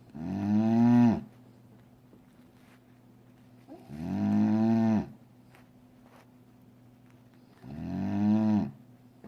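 Sleeping dog snoring with moo-like calls: three one-second pitched snores a few seconds apart, each rising a little in pitch and then falling away.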